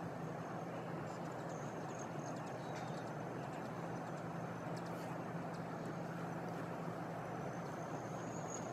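A steady low mechanical hum over an even background hiss. Faint thin high-pitched tones come and go about a second in and again near the end.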